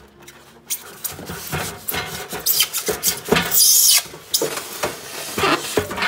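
Scraping and rubbing of packing as a round metal wire rack is worked loose from its foam and cardboard packaging, in a run of irregular strokes. The harshest scrape comes a little past the middle and lasts about half a second.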